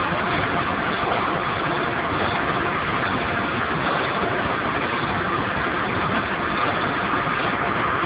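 Steady, loud running noise of steam boiler plant machinery, an even rushing hum that holds level without rhythm or breaks.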